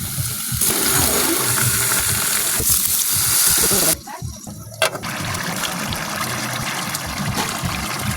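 Water running from a kitchen tap into a sink in a loud, steady stream. It cuts off about four seconds in, and after a click a lighter flow trickles on.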